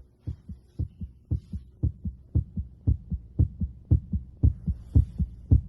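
Heart sounds heard at the accessory aortic auscultation site on the third left intercostal space: a steady lub-dub rhythm of paired beats, about two heartbeats a second, with a faint steady hum underneath.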